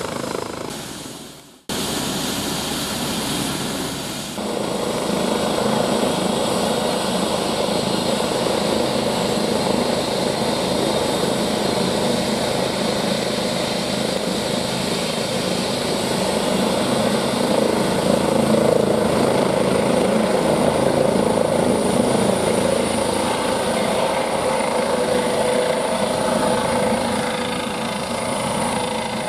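Eurocopter EC135 (Airbus H135) twin-turbine helicopter running on the pad and then lifting off: steady rotor and turbine noise, with a high turbine whine coming in about two-thirds of the way through as it powers up for takeoff. The sound cuts out briefly about a second in.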